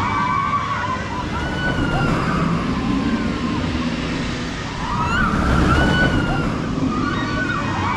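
Roller coaster ride: a steady rush of wind noise with riders screaming several times, around a second in, around five to six seconds in and near the end.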